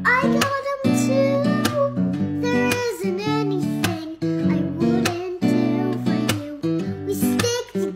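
Music: a strummed acoustic guitar with a voice singing a melody over it.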